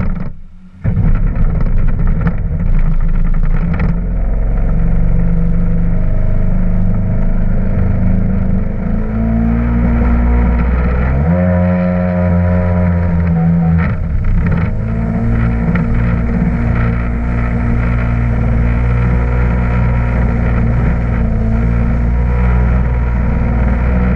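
Yamaha WaveRunner jet ski engine running hard at speed, with water and wind rushing past. The engine comes up to full loudness about a second in and holds steady, with a brief change in its note around the middle.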